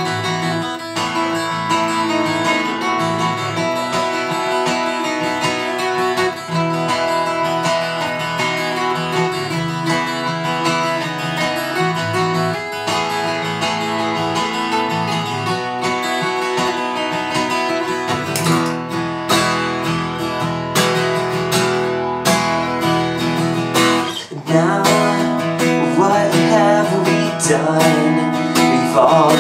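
Acoustic guitar strumming an instrumental passage of a song, with sharp strums from about two-thirds of the way in and a brief drop about 24 seconds in before it comes back louder.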